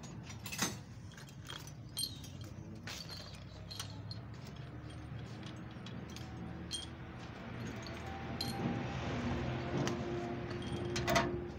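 Metal parts and hand tools clinking now and then against a tractor engine's exposed cylinder head and valve springs. A faint steady hum comes in over the last few seconds.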